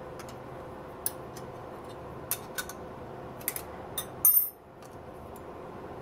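Light metallic clicks and ticks of small hardware being handled, with one louder brief clatter about four seconds in, over a steady low hum.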